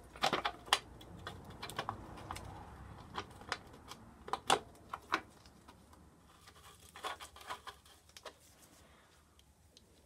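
Scattered light clicks and metallic taps of hands and a tool working on a motorcycle's rear axle and chain. They come in small irregular clusters: one at the start, one in the middle and one later on, then tail off near the end.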